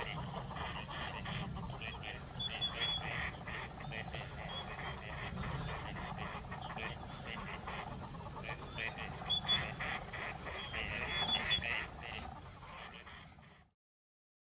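Gadwall ducks calling: a continuous chatter of quacks and calls, with a few brief, sharp high notes standing out above it, over a steady low rumble. It cuts off abruptly near the end.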